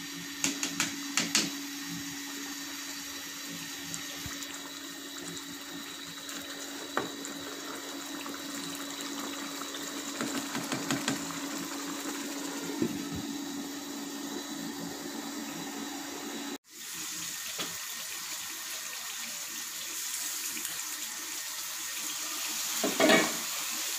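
Beef and whisked yogurt cooking in oil in a karahi, giving a steady sizzle as the yogurt's water cooks off. A few spoon scrapes against the pan come at the start, and another comes near the end.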